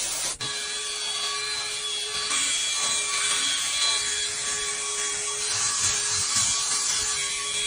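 Cordless drill spinning a round scrub brush over a foam-soaked fabric car seat: a steady motor whine over a rasping scrubbing noise. A short hiss of foam spray at the start cuts off about half a second in.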